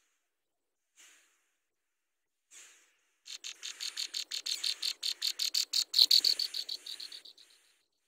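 Nestling songbirds begging: a couple of short high calls, then a rapid run of high-pitched chirps, about eight a second, that swells to its loudest a little after the middle and fades away near the end.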